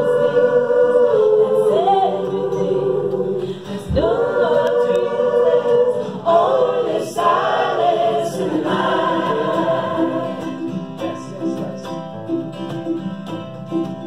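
Choir singing long, held notes in harmony, a new phrase swelling in about four seconds in.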